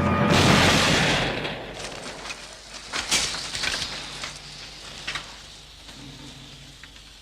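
A hand grenade exploding in a loud blast that dies away over a second or so, followed by scattered clatters of falling debris.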